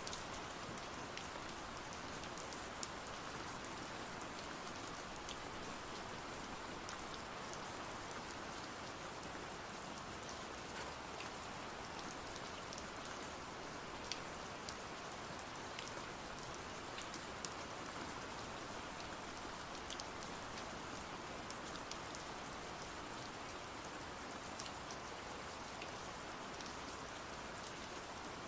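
Steady rain falling, with scattered faint clicks of drops or small crackles over the even hiss.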